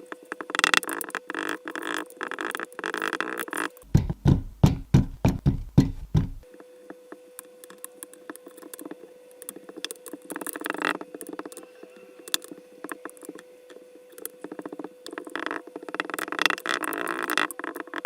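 Kinetic sand being cut, pressed and squished, making soft crunchy crackles under a faint steady hum. About four seconds in comes a couple of seconds of deeper, dull thumps, about nine of them.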